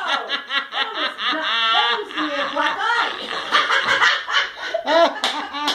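People laughing hard, several voices overlapping, with a fast fluttering cackle about one and a half seconds in.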